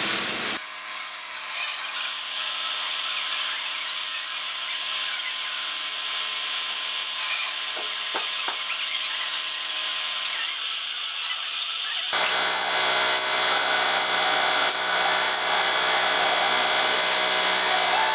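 Mini lathe running with a steady, high-pitched motor whine while a 3.25 mm drill bit is fed into the spinning workpiece to drill a tapping hole for an M4 thread. About two-thirds of the way through, a lower hum comes in abruptly alongside the whine.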